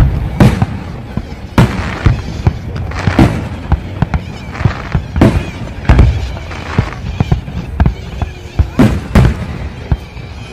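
Aerial fireworks shells bursting, a dozen or more loud booms at uneven intervals, sometimes two in quick succession.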